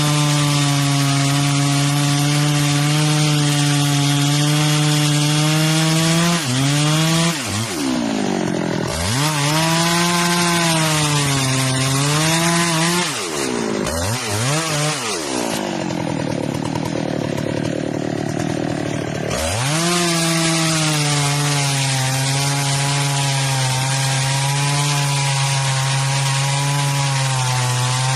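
Two-stroke chainsaw running at high revs, cutting wood. Its engine note drops sharply and climbs back three times, about a quarter, halfway and two-thirds in, where the throttle is eased between cuts.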